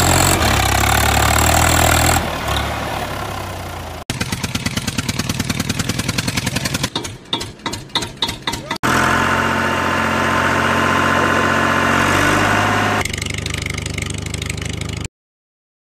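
Tractor engine sound effects in spliced segments. A steady running engine gives way about four seconds in to a fast, even rattling chug that breaks into separate sputters. An engine then runs steadily again from about nine seconds and cuts off suddenly a second before the end.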